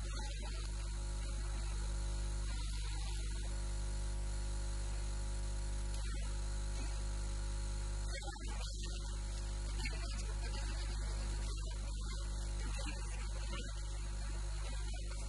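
Steady electrical mains hum, a low buzz with a stack of evenly spaced overtones that runs unchanged and dominates the sound.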